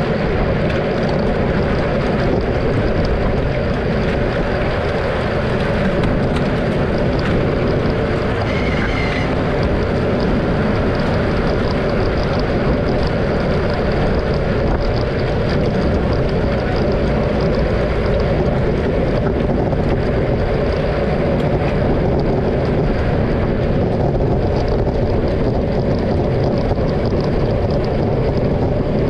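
Steady rush of wind on the microphone with road noise from moving along, unbroken throughout.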